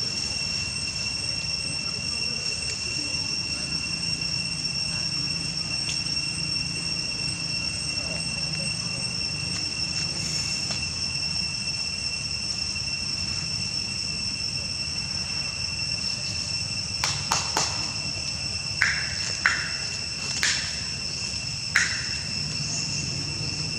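Insects droning steadily at two high pitches, with a low rumble underneath. In the last several seconds, about half a dozen short, sharp high chirps or squeaks break in.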